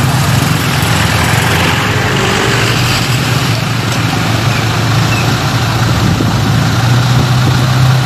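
Diesel engine of an Isuzu bucket truck running steadily at idle, a continuous low hum.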